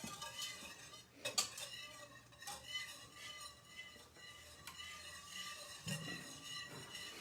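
A whisk stirring and clinking against a saucepan, with a few sharp clinks among the stirring, as an egg-and-milk eggnog mixture is cooked until it thickens.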